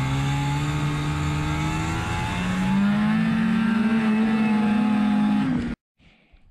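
Snowmobile engine running under way, heard from the rider's seat. Its pitch rises as it speeds up about two and a half seconds in, then holds steady until the sound cuts off abruptly near the end.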